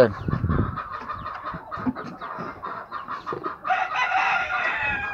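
A game rooster crows once near the end: one long crow, about a second and a half.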